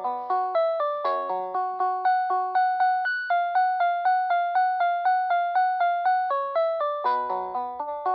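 A GreenLyca GL70281 telephone playing one of its ringtones: an electronic, piano-like melody of quick, evenly spaced notes, about four a second. Chords open it and return near the end; in the middle a repeated note alternates with higher ones.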